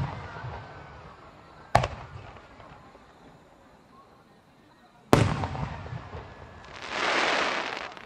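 Aerial firework shells bursting overhead: a sharp boom about two seconds in and another about five seconds in, each trailing off in a long rolling echo. Near the end comes a sudden rush of noise lasting about a second.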